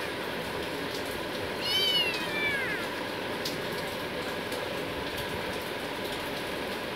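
A ginger tabby kitten gives one high-pitched meow about two seconds in, its pitch rising and then falling, over a steady background noise.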